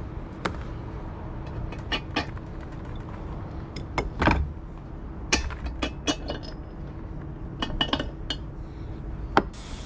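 Metal hand tools and small parts clinking and knocking on a wooden workbench, about a dozen scattered sharp clinks with the loudest a little after four seconds in, over a steady low rumble.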